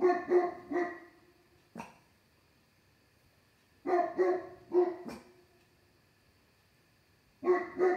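Dog barking in three bursts of three or four loud barks, with a few seconds' pause between bursts and a single short click in the first pause.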